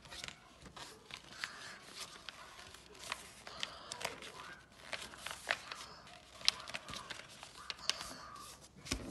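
A sheet of white paper rustling and crinkling, with many short sharp clicks, as it is folded and its creases are pressed flat into a paper airplane.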